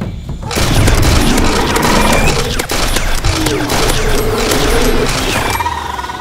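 Nerf DinoSquad Rex-Rampage motorized blaster firing full-auto: a rapid, continuous mechanical clatter that starts about half a second in and stops near the end.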